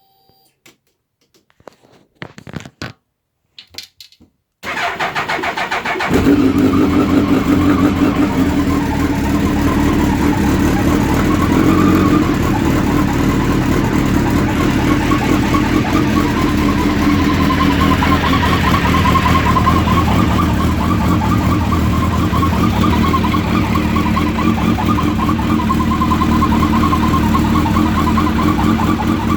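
Suzuki Hayabusa inline-four motorcycle engine started from completely cold: a few clicks, a short burst of starter cranking about four and a half seconds in, then the engine catches and settles into a steady idle. Under the idle runs a whirring whose cause the owner has not yet found, present at any engine temperature.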